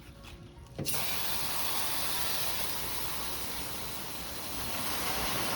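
Garden hose spraying water to rinse down a car, starting abruptly about a second in and then running as a steady, even hiss.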